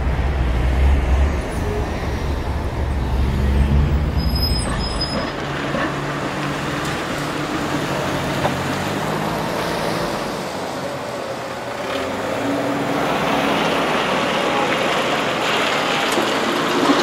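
Street traffic noise: a heavy vehicle's low rumble for about the first five seconds, then a steady traffic noise that grows busier and brighter from about twelve seconds in.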